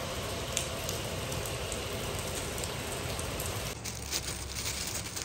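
Heavy rain pouring onto a tiled rooftop terrace, a steady hiss. About three and a half seconds in it gives way to irregular crinkling of a plastic bag around a wrapped gift box.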